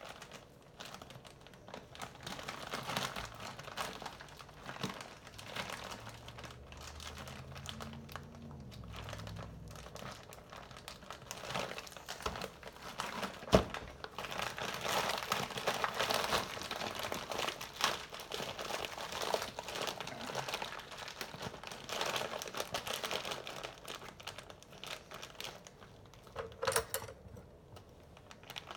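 A plastic bag of mango chunks rustling and crinkling as it is handled and the chunks are measured out, with a sharp click about halfway through.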